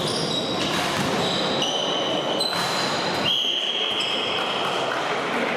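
Athletic shoes squeaking on a sports-hall floor: a quick series of short, high squeals, the longest lasting over a second about three seconds in, over the general noise of a hall.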